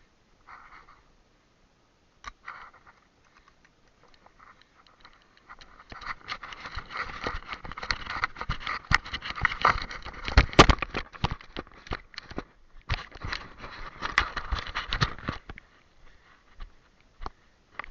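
Close rustling and crackling of dry brush as someone moves through it, with a few faint scrapes first, building to steady crackling about six seconds in and stopping near the end.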